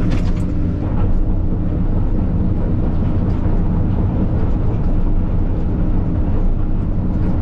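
Diesel engine of a tracked earthmoving machine running steadily at working speed, a loud low drone, with a brief rattle right at the start.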